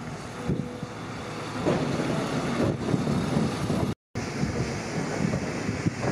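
Wind buffeting the microphone in uneven gusts, with a brief drop to silence at an edit about two-thirds of the way through.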